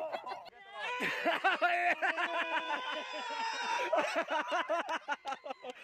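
People laughing hard in rapid, repeated bursts, with a long high drawn-out cry partway through.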